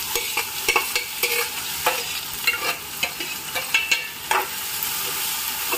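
Chopped onions sizzling in hot ghee in a kadhai, with a metal spoon scraping and clicking irregularly against the pan as they are stirred.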